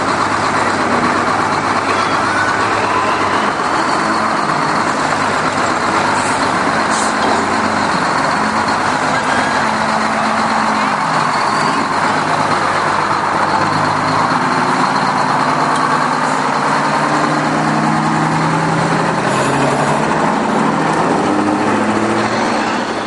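Detroit Diesel 6-71 two-stroke diesel in a 1948 GMC AD 950 truck, running loudly as the truck rolls slowly past at close range. The engine's pitch wavers up and down in the second half.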